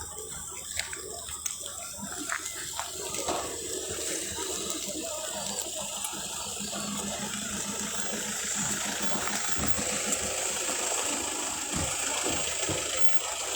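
Steady rushing of water that grows louder over the first few seconds, with a low hum rising and fading in the middle and a few small knocks.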